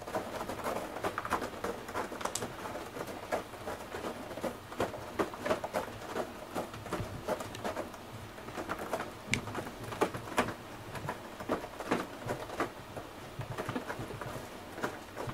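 Cat tearing at a corrugated cardboard scratcher with its claws and teeth: a quick, irregular patter of short scratchy strokes.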